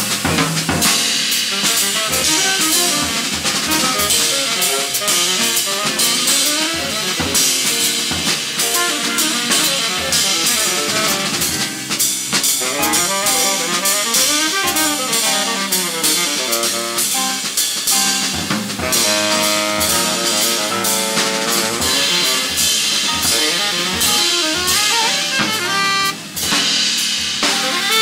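Live small-group jazz with the drum kit to the fore, busy cymbal and drum work. A saxophone and a double bass play along.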